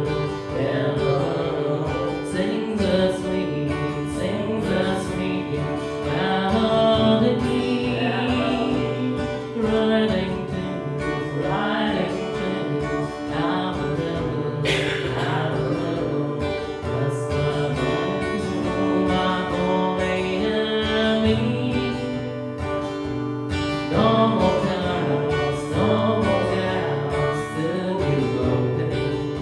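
Music: a song with acoustic guitar and a singing voice, in a country or gospel style.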